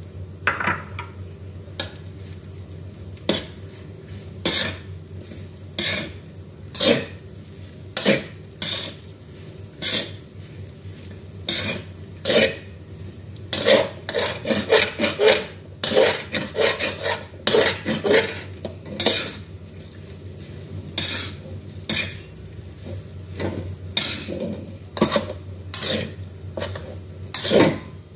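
A metal spatula scrapes and clanks against a large metal wok as fried rice is stir-fried, mixing in sambal paste. The strokes come unevenly, about one a second, and come faster for a few seconds in the middle.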